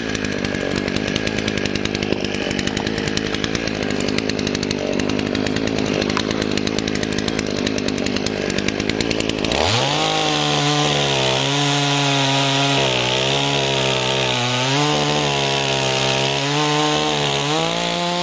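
Dolmar two-stroke chainsaw idling, then revved up about halfway through and cutting into a log at full throttle, its pitch dipping and recovering as the chain bites. The throttle eases off at the very end.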